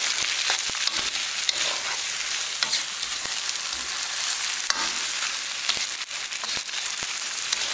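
Flat rice noodles, cabbage, bean sprouts and prawns sizzling steadily in a hot wok as a spatula stirs and tosses them, with scattered scrapes and taps of the spatula against the pan.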